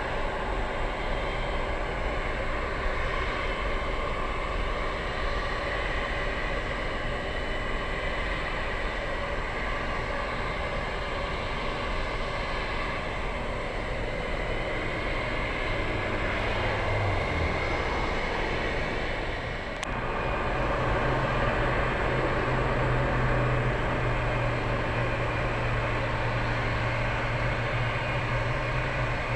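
Steady jet engine noise of an airliner taking off from a wet runway and climbing away. About twenty seconds in the sound changes to a steadier, slightly louder engine hum with a low drone: an Airbus A320-232's IAE V2500 engines at low thrust on the runway.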